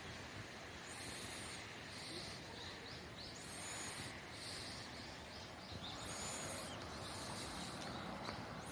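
Faint, high-pitched chirping calls repeating in pairs about every two seconds, over a steady low hiss.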